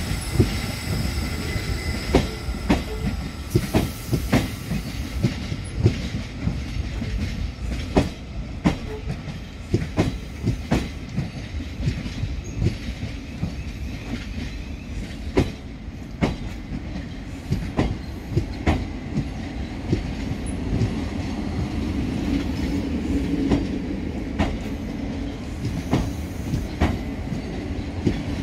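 Thameslink Class 700 electric multiple unit rolling slowly past, its wheels clicking irregularly over rail joints and pointwork above a steady running rumble.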